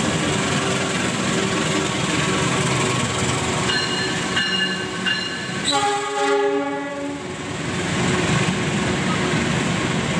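Diesel-hauled passenger train rumbling along the station track, with three short faint horn toots around four seconds in. This is followed by one long, loud train-horn blast of about a second and a half, then the steady rumble of passenger coaches rolling past on the rails.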